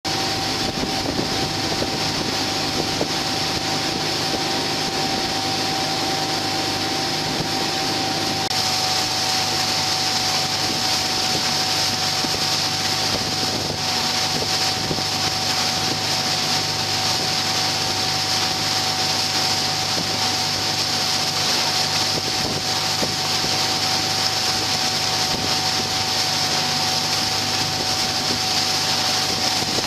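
Boat engines running at speed on open water, a steady drone under the rush of wind and water, with a steady high whine running through it. The engine note shifts slightly about eight seconds in.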